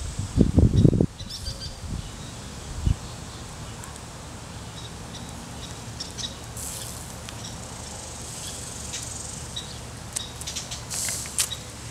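Outdoor ambience: faint scattered bird chirps over a steady low hum. A few loud low thumps come about half a second to a second in, and a cluster of sharp clicks comes near the end.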